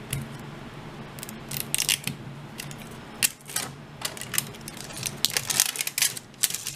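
Plastic wrapper of an LOL Surprise ball being ripped open along its zip tear strip: a run of crinkly tearing rasps, a few at first and then many in quick succession through the second half.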